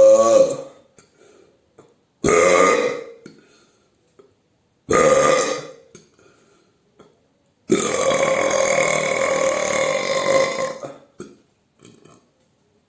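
A run of loud human burps: the tail of one at the start, two short burps about a second long a few seconds apart, then one long drawn-out burp of about three seconds.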